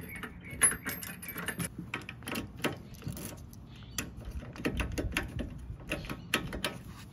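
Scattered metal clicks and rattles from a Heininger 6033 keyed hitch-pin lock being fitted onto the end of a hitch pin and locked with its key, with the key ring jingling.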